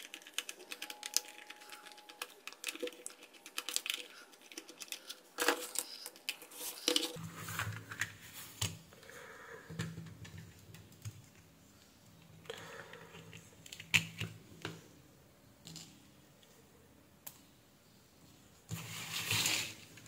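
Irregular small clicks, taps and scrapes of a plastic computer mouse being unscrewed with a screwdriver and taken apart by hand.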